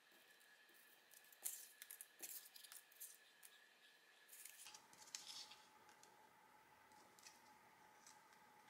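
Faint rustling and light taps of painted paper circles being handled and shuffled by hand on a wooden tabletop, in scattered short bursts.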